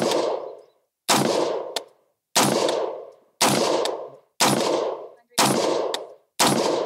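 A 10.5-inch-barrel AR-15 pistol firing .223 Remington 55-grain rounds semi-automatically. Seven shots come at about one a second, each trailing off in a ringing echo.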